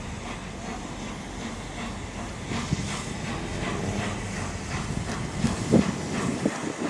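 Peppercorn A1 Pacific steam locomotive 60163 Tornado drawing its train of coaches slowly, with a steam hiss and a run of clicks from the wheels on the track, growing louder as it approaches.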